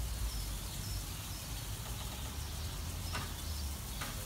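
Steady low outdoor rumble with a faint hiss, a few faint high chirps, and two brief soft sounds near the end.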